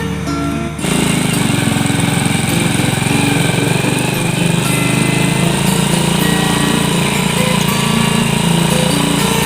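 A small engine cuts in abruptly just under a second in and runs steadily at a constant speed, with a fast rattling beat.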